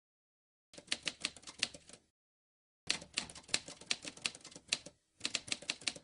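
Typewriter sound effect: quick, sharp key clacks in three runs of one to two seconds each, separated by dead silence.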